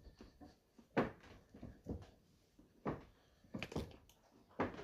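Bench vise being tightened by its sliding bar handle, giving about half a dozen soft metal clunks roughly a second apart.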